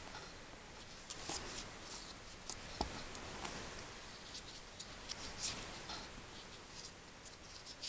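Faint rustling and scattered soft ticks of hands tying a knot with embroidery floss strands, with one soft knock about three seconds in.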